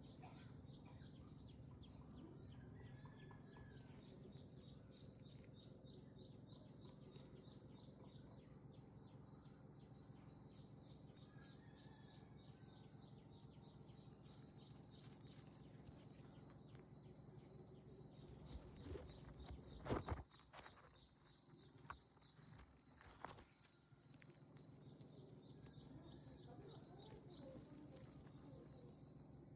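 Faint outdoor garden ambience: a rapid, evenly repeating high chirping with a few faint bird calls. A couple of knocks come about two-thirds of the way through.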